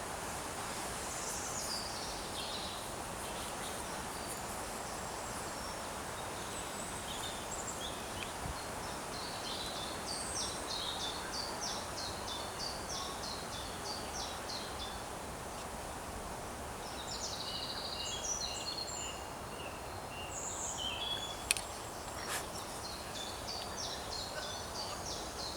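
Songbirds singing in a spring woodland, in phrases of rapid repeated high notes, over a steady hiss of outdoor background noise. Two sharp clicks come close together about three-quarters of the way through.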